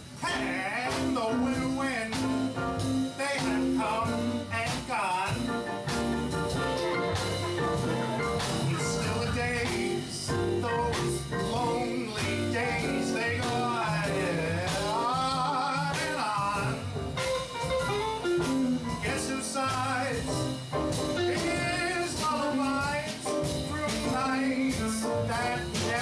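Live small band of piano, guitar and drum kit playing a jazzy ballad, with a singer's voice coming in at times.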